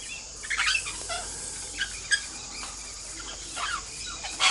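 Princess parrots giving short, squeaky chirps and squeals, one after another at irregular intervals, over a steady high hiss, with the sharpest call at the end.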